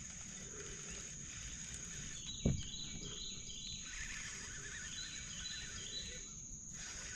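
Outdoor ambience: a steady high insect drone, with a bird singing runs of quick repeated notes from about three seconds in. A single low thump sounds about two and a half seconds in.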